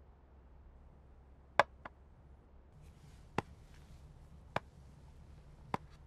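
Slow footsteps on a hard floor: sharp taps about a second apart, the loudest a double tap about one and a half seconds in. A faint rustle, like a paper bag being handled, comes in the middle.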